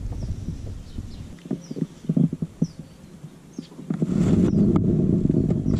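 Irregular knocks and rattles of fishing gear on a kayak while a hooked bass is reeled in, then a louder stretch of rushing noise from about four seconds in. Faint short chirps of small birds.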